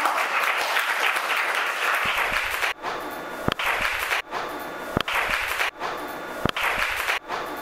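Applause from an audience at the end of a talk. About three seconds in, it changes to a repeating sound with a sharp tick about every second and a half.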